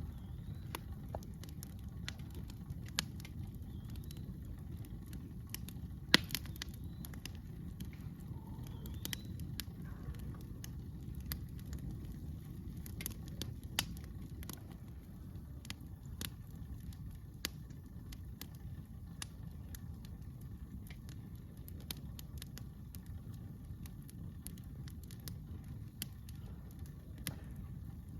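Campfire crackling, with irregular sharp pops and snaps of burning wood, one louder pop about six seconds in, over a steady low rumble.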